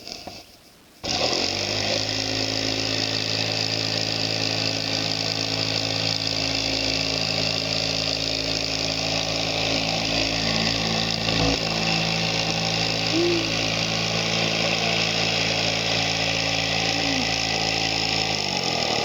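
A motor running steadily at constant speed. It comes in abruptly about a second in and winds down to a stop near the end.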